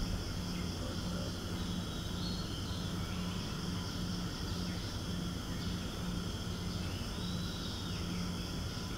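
Steady background noise: a low hum pulsing on and off about twice a second, over an even high hiss.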